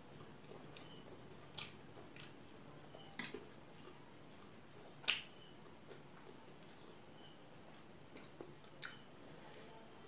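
Sparse sharp clicks and smacks of eating by hand, from fingers on a ceramic plate and from the mouth, about six in all, the loudest about five seconds in.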